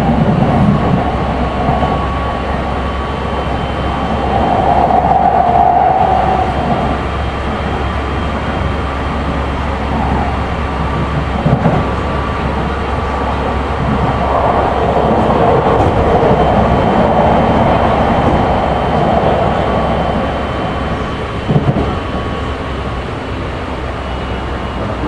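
Running sound inside a Keikyu 1500 series electric train car with Mitsubishi GTO inverter drive, travelling at speed: a steady rumble of wheels on rail with a faint steady whine. Two short knocks about ten seconds apart, from the wheels passing rail joints.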